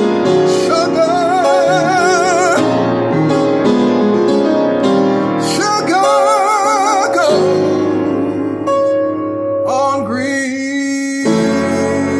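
A man singing long held notes with wide vibrato over piano accompaniment; about two-thirds of the way through, one note slides up and is held.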